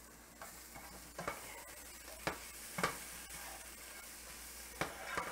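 Chopped poblano pepper, onion and garlic sizzling faintly in a skillet while being stirred, with a spatula scraping and knocking against the pan a handful of times.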